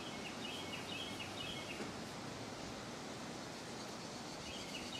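Steady outdoor background noise, with a bird singing a short phrase of quick high chirps twice: once in the first two seconds and again near the end.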